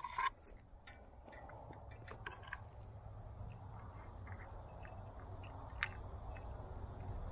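Small metallic clicks and clinks of a bolt, washer and chain being fitted and a nut threaded on by hand, with one sharp click right at the start. A thin, steady high tone comes in about three seconds in.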